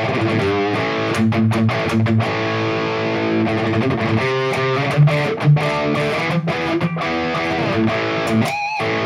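High-gain distorted electric guitar riffing through a Headrush Prime modelling a Mesa/Boogie JP-2C amp, on a front-of-house preset. Palm-muted chugs alternate with ringing chords, and a few held notes are bent with wide vibrato.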